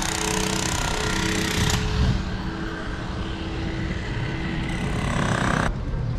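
Motorized machine running steadily with a hum and a steady whine, fading out after about five seconds, over street noise.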